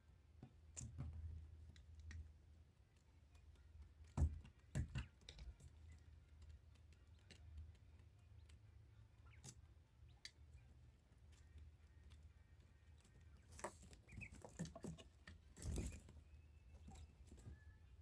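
Faint scattered taps and clicks over a low hum, the loudest knocks about four seconds in and near the end.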